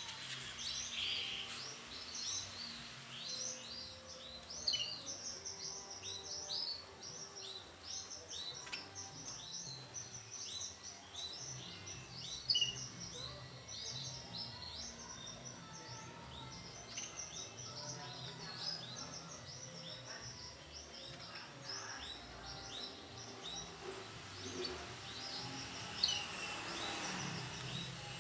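Canaries chirping: a dense, continuous run of short, high chirps and twitters.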